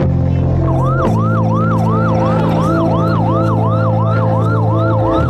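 Emergency vehicle siren in a fast up-and-down wail, about three sweeps a second, starting about a second in, over sustained background music chords.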